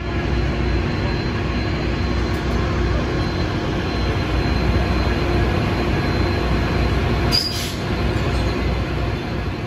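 DART light rail train rolling past the station platform with a steady low rumble, a thin high wheel squeal running under it, and a brief sharper squeak about seven seconds in.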